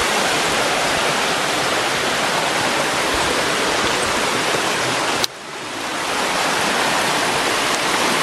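Rushing river water, a steady loud rush. About five seconds in a sharp click cuts in, the rush drops suddenly and swells back over about a second.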